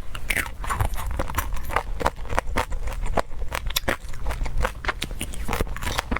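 Close-miked eating: chewing with many irregular wet clicks and crackles from the mouth.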